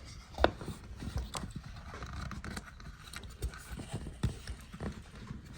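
Small objects being handled on a counter: irregular light clicks and knocks, the sharpest about half a second in.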